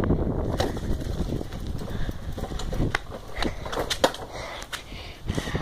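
Irregular knocks and scuffs from a handheld phone being carried by someone moving on foot, with wind rumbling on the microphone that eases off about half a second in.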